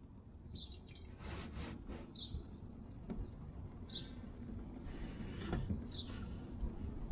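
A bird chirping outdoors: short, high, falling notes repeated about every second and a half to two seconds, over a low rumble of wind and handling noise, with a few brief rustles.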